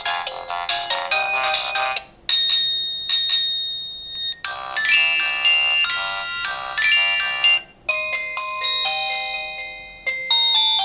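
Nokia 110 4G ringtones played one after another: short electronic melodies of clear held notes, each lasting a few seconds, with a new tune starting after brief breaks near 2, 4, 8 and 10 seconds in.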